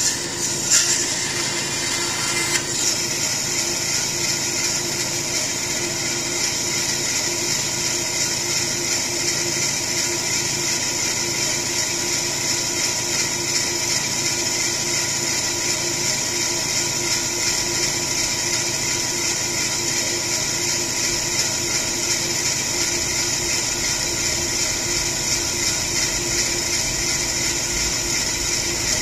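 Bandsaw motor and blade running steadily with a constant hum and high hiss. In the first couple of seconds the blade cuts wood, finishing a small round plug; after that the saw runs without cutting.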